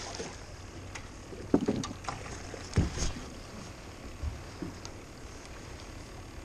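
Landing net with a bass splashing in the water, then lifted over the side of an aluminium boat, with a few short knocks, the two loudest about a second and a half and three seconds in. Steady wind and water noise runs underneath.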